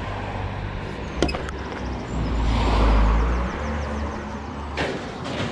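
Van engine running, with a heavier low rumble for a second or so midway and a couple of sharp clicks about a second in.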